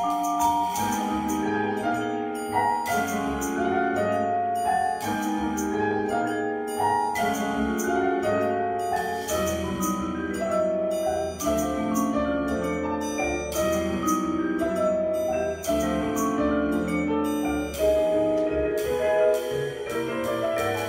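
Vibraphone played with mallets: fast runs of ringing, overlapping notes, accompanied by a double bass and a drum kit.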